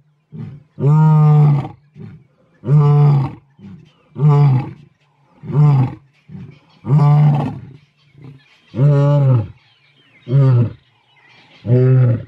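Male lions roaring in a bout: loud, deep roars about every second and a half, with long roars near the start and about seven seconds in and shorter, clipped grunts between and after them.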